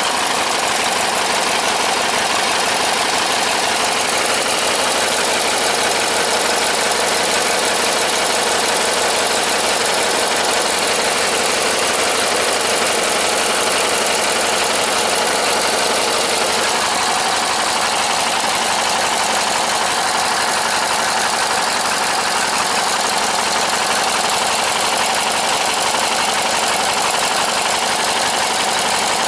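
Briggs & Stratton riding-mower engine running steadily at close range, just after being started. Its note changes a little a bit past the middle.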